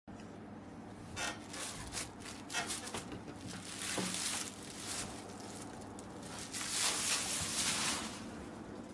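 Soft linen saree fabric rustling and swishing as it is unfolded and spread out by hand on a table, in several bursts: around a second in, about four seconds in, and again about seven seconds in.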